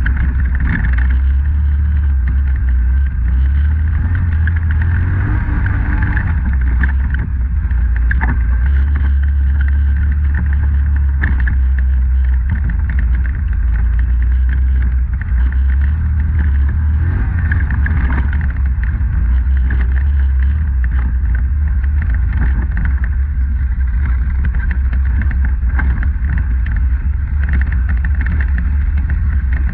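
Polaris Sportsman 850 ATV's parallel-twin engine running steadily while riding a wooded trail, a constant low rumble with a higher whine above it and a few brief knocks from the trail.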